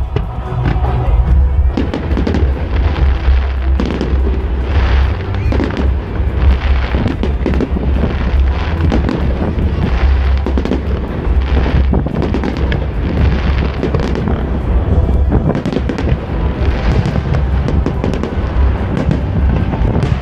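Aerial fireworks display: a rapid, continuous string of shell bursts and crackling stars over a steady low rumble.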